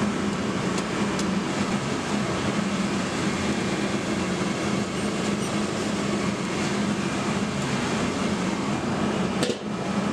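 Steady machine roar with a low hum, as of shop equipment running. A short click and a brief drop in the noise come near the end.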